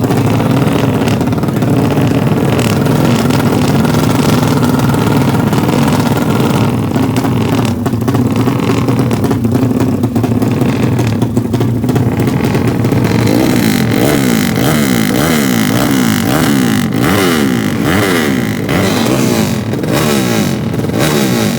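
Drag-racing motorcycle engine running loudly at a steady pitch. From a little past halfway it is revved over and over in quick throttle blips, the pitch rising and falling again and again.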